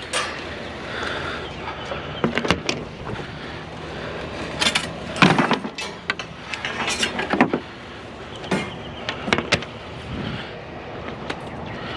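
Irregular knocks, clicks and rattles from handling and pulling apart discarded curbside items, with a few louder scraping bursts about five and seven seconds in, over a steady background rumble.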